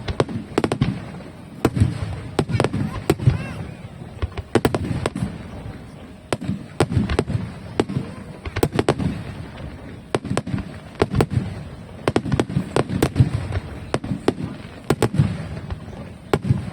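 Aerial fireworks bursting in quick succession: many sharp cracks over repeated deep booms, without a break.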